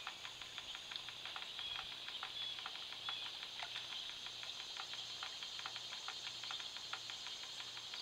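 Small floating solar fountain in a concrete bird bath, its jet of water falling back in an irregular patter of droplet ticks on the water surface, over a steady high hiss.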